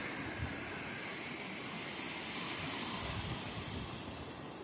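Ocean surf breaking and washing up the sand, a steady hiss that swells a little past the middle, with wind buffeting the microphone.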